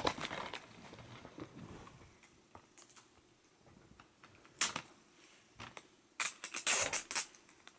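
Clicks and soft rustling from a plastic DVD case being handled, with a quick run of sharp clicks near the end.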